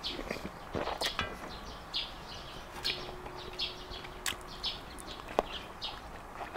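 Close-up eating sounds: ramen noodles being slurped and chewed in short repeated bursts, with a few sharp clicks of utensils against the bowl.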